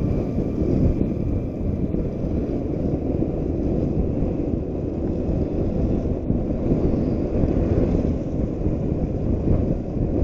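Steady, heavy wind rumble buffeting an action camera's microphone on a moving motorcycle, mixed with road noise.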